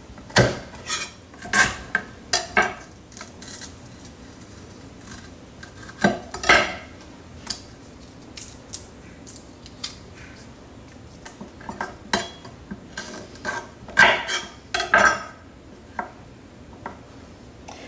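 Chef's knife cutting and knocking on a wooden cutting board as a lemongrass stalk is trimmed and its tough outer layers are peeled off: scattered sharp knocks in small clusters, with quieter stretches between.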